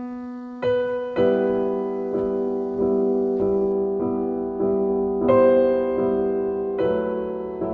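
Background music: slow, gentle piano, chords struck about once a second and left to ring.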